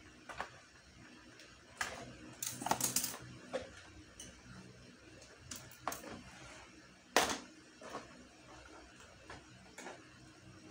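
Plastic toy blaster parts and cardboard packaging being handled and pulled from a box tray: scattered clicks and rustles, a quick cluster of them about two and a half seconds in and the sharpest click about seven seconds in, over a faint steady hum.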